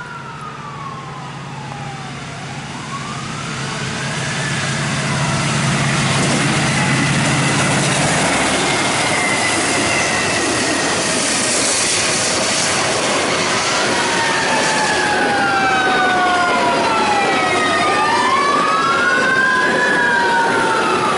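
A fire truck siren wails, rising and falling slowly over and over, over a Norfolk Southern intermodal freight train hauled by three diesel locomotives. The train grows steadily louder over the first six seconds as it arrives, then rushes past loud and steady.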